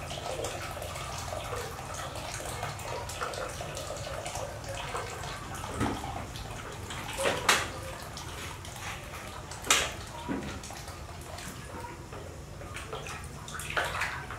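Water pouring in a steady stream from a metal kettle into a plastic basin, with a few sharp knocks or clinks in the middle and near the end.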